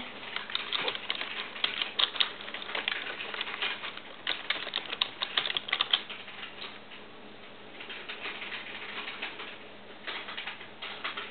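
Typing on a computer keyboard: quick runs of keystrokes, with a short pause a little past halfway.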